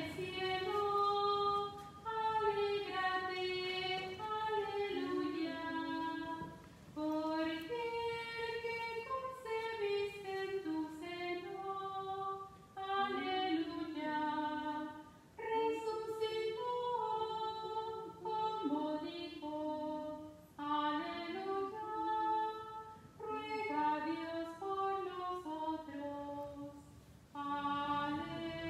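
A woman singing a hymn solo: one high voice, unaccompanied or nearly so, in sung phrases of a few seconds with short breaths between them.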